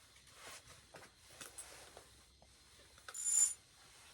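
Faint rustling and small clicks of handling, then a short, louder clink with a high ringing tone about three seconds in.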